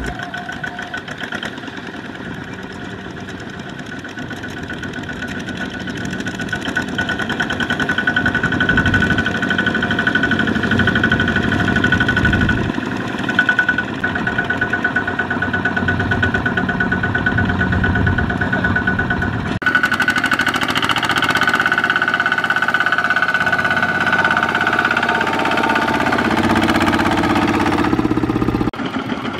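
Kubota ZT155 single-cylinder diesel engines of two-wheel walking tractors running steadily with a chugging knock. The sound changes abruptly twice, about two-thirds through and again near the end.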